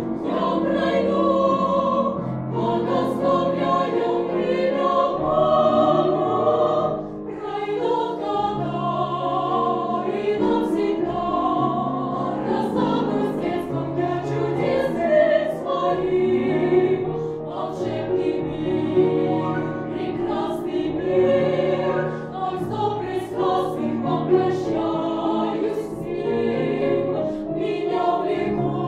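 A girls' vocal ensemble singing a Russian song in several parts, with piano accompaniment.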